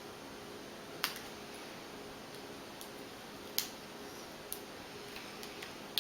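Hands working on an opened laptop's LCD panel and its tape: a few small, sharp clicks and ticks, the loudest about three and a half seconds in, over a steady low hiss.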